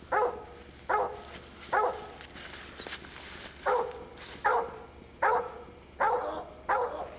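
Coonhound barking treed: a steady run of short, falling barks about one a second, with a brief pause before the middle, as the dog bays up a tree where a raccoon is thought to be.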